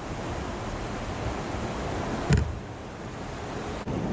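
Steady rush of river water and wind around a boat, with one short low thump about two and a half seconds in and a sharp click near the end.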